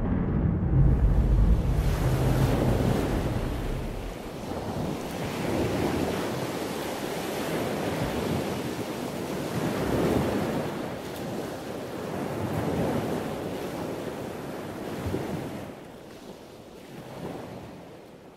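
Ocean surf washing in and out, the rush swelling and ebbing every couple of seconds and slowly fading toward the end. A deep rumble dies away over the first few seconds.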